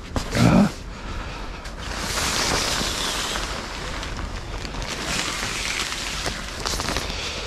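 Stiff, frost-crusted tarp fabric rustling and crackling, together with boots scuffing over dry straw, as a steady rough hiss lasting several seconds after a brief low sound about half a second in.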